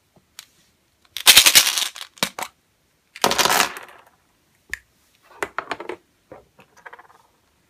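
A plastic surprise egg popped open and small round candies and a plastic letter spilling out, clattering onto a hard tabletop in two rattling bursts, followed by scattered lighter clicks as the pieces and egg halves are handled.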